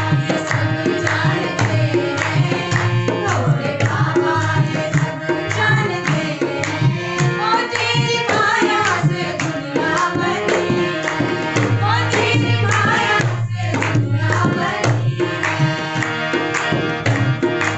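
Live devotional bhajan: a woman's voice singing with harmonium accompaniment, a dholak drum keeping a steady rhythm, and other voices singing along.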